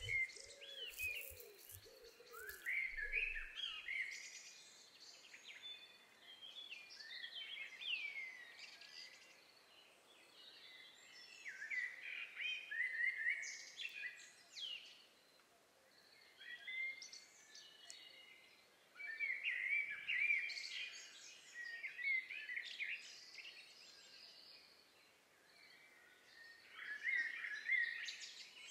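Several small songbirds singing and chirping in a recorded nature soundscape, in bursts of quick high chirps a few seconds long with quieter gaps between, over a soft steady background hiss.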